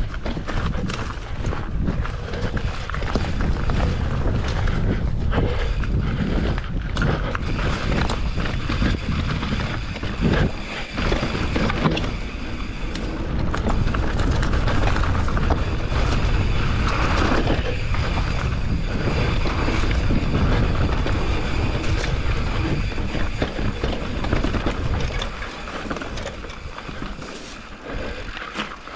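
Mountain bike riding over rocky dirt singletrack: tyres rolling and skittering over dirt and rock, with the bike knocking and rattling over bumps and wind buffeting the camera microphone. It gets quieter near the end.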